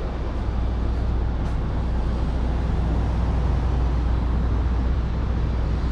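City street traffic: a steady low rumble of vehicle engines and road noise.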